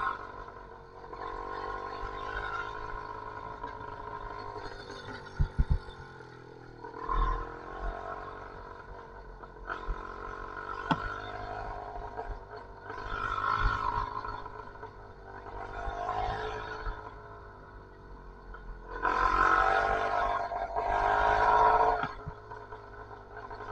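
YD85 two-stroke engine with a Master Blaster expansion-chamber pipe running, its note swelling louder as it revs several times, loudest in two revs near the end. A few sharp clicks about five and eleven seconds in.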